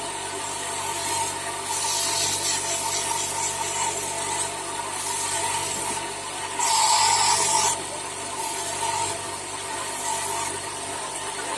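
Motor-driven wet grinding wheel running with a steady whine. Several stretches of rasping grinding come as a rough agate stone is pressed against the wheel to shape it, the loudest about seven seconds in.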